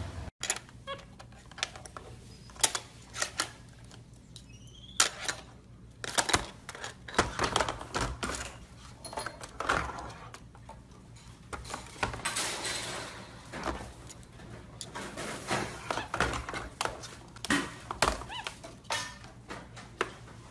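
Irregular soft clicks and smacks with some rustling, from a capuchin monkey cuddling and grooming another capuchin on a bed, with a couple of faint rising squeaks about three seconds in.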